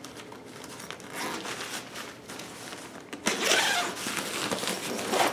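Zipper pulled open along the grey fabric carry bag of a rolled-up truck awning, with the fabric rustling. It starts in short pulls and gets loudest in a longer, steadier run through the second half.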